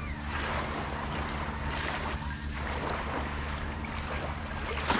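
Small waves lapping at the shore, with wind on the microphone, and a brief sharp sound near the end.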